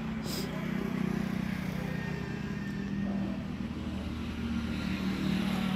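An engine running steadily at an even pace, a low, unbroken drone.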